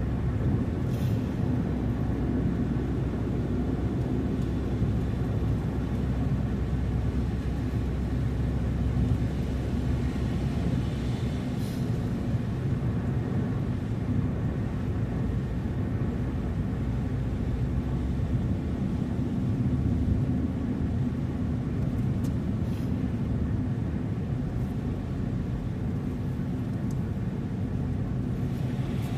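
A car being driven: steady low rumble of engine and road noise, with a few faint brief ticks now and then.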